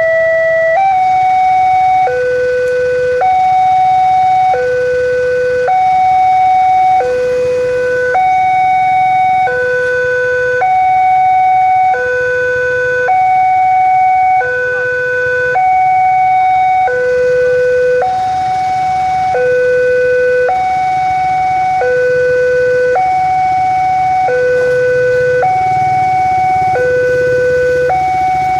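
Railway level-crossing warning alarm sounding a steady two-tone hi-lo signal: a higher and a lower tone alternate evenly, each held a little over a second. It warns that a train is approaching and the crossing is closed to road traffic.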